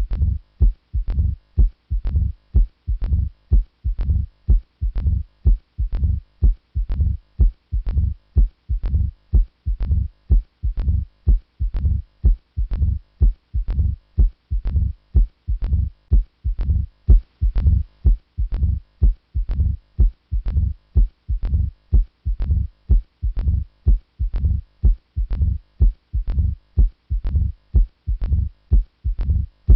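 Heart sounds heard through a stethoscope: a regular, steady heartbeat, each beat low in pitch with a sharp click at its onset.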